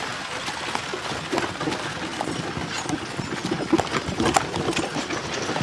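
A horse's hooves clip-clopping on a dirt lane as it pulls a cart, with irregular sharp knocks over the steady rattle of the cart's wheels rolling.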